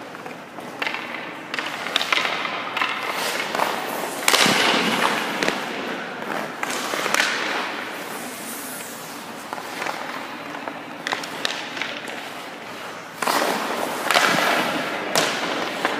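Hockey rink sounds: skate blades and goalie pads scraping and sliding on ice, with sharp cracks of a stick striking a puck and pucks hitting the pads. The loudest hits and scrapes come about four seconds in and again near the end.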